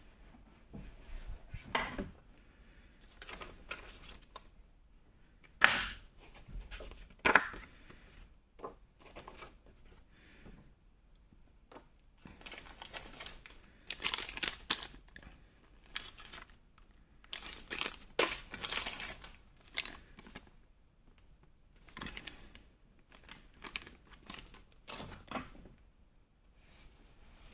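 Packaging being unpacked by hand: irregular rustling and crinkling with a few sharp clicks and knocks, the loudest two about six and seven seconds in.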